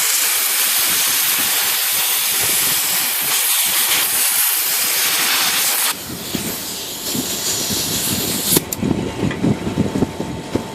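Loud hiss of compressed air from an air gun blasting through a typewriter's type bar segment, flushing lacquer thinner and dissolved old oil out of the pivots. It stops abruptly about six seconds in and gives way to a quieter, rougher low running noise.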